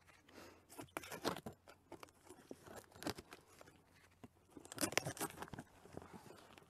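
Knife slicing through packing tape on a cardboard box, with the tape tearing and the cardboard crackling and scraping in several short bursts.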